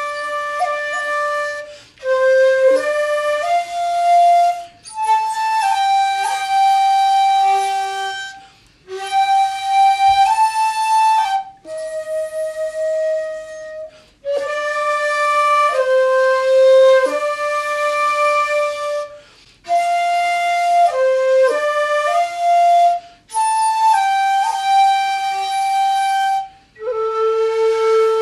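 Two shakuhachi, Japanese end-blown bamboo flutes, playing a slow traditional duet melody. The notes are held steadily with brief slides and dips in pitch between them, in phrases a few seconds long separated by short breath pauses.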